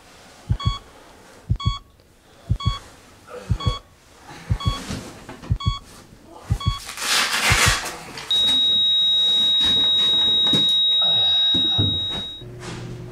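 Heart-monitor beep about once a second, each with a double heartbeat thump, then a rustle of bedding. Then a steady flatline tone holds for about four seconds as the monitor loses the heartbeat, and fades out.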